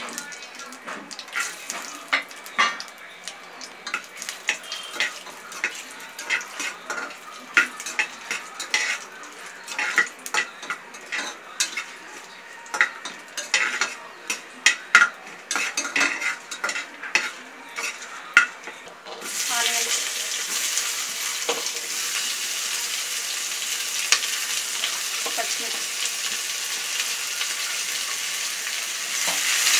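A metal spoon stirs and scrapes cashews, raisins and whole spices frying in ghee in an aluminium pressure cooker, with many sharp clicks and taps against the pot. About two-thirds of the way through, a loud steady sizzle starts as sliced onions and green chillies hit the hot ghee.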